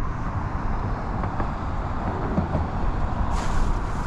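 Steady rumble of road traffic with a hiss of tyres, and a brief louder hiss about three and a half seconds in.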